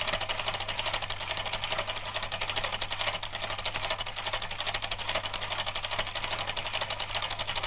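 Film projector running: a steady, rapid mechanical clatter over a low hum.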